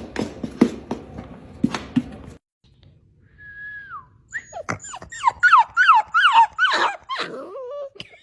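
A dog whining and yelping: one falling cry, then a quick run of short cries that each drop in pitch. Before that, in the first two seconds, a tapping rhythm over music.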